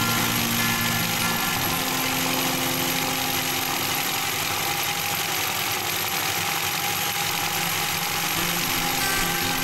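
Electric sewing machine running steadily, stitching continuously as fabric is fed under the presser foot.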